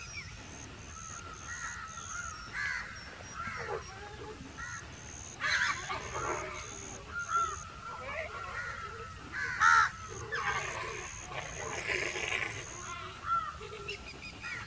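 Scattered short animal calls with pitch that bends up and down, the loudest about a third of the way in and again about two thirds in. Underneath, a faint high pip repeats about three times a second.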